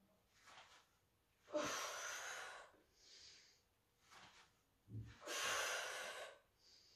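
A woman's breathing paced with a Pilates roll: two long, forceful exhales about four seconds apart, with softer, shorter breaths between them. A soft low thump comes just before the second exhale.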